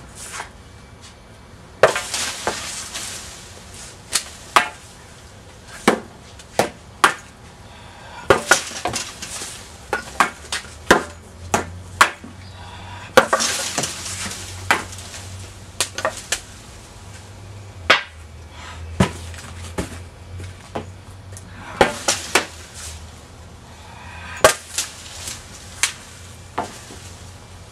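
A long wooden dragon pole striking the arms and post of a wooden pole-training dummy, giving irregular sharp wooden knocks and clacks. A few strikes are followed by about a second of scraping rush.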